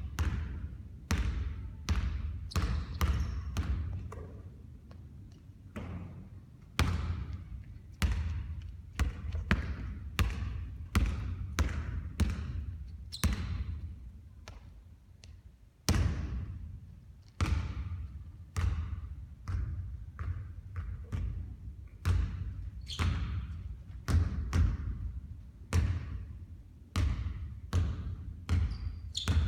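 Basketballs bouncing on a hard court during shooting practice: a steady run of sharp thuds, one or two a second at irregular spacing, some followed by a short ringing.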